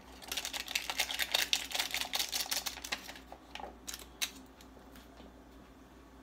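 Crinkling and crackling of an instant ramen cup's packaging being opened by hand: a dense run of crackles for about three seconds, then a few separate crinkles.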